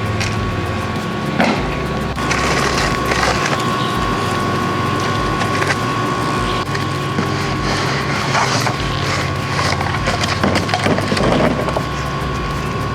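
Electric drill running a hole saw that cuts through a wooden wall, with a steady motor whine under rough, uneven grinding and splintering of wood.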